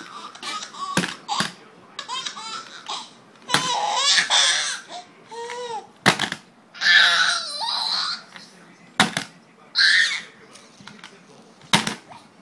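A baby laughing in repeated bursts, with several sharp slaps or claps scattered between the laughs.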